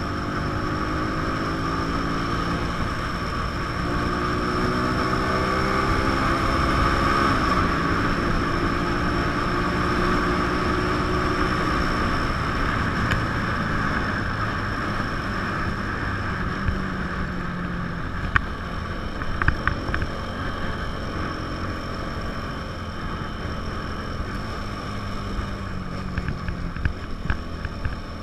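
A 150 cc motorcycle engine under way from the rider's seat, with wind noise on the microphone. The engine pitch climbs and drops back twice in the first eight seconds as it shifts up through the gears, then holds steadier, with a few short clicks later on.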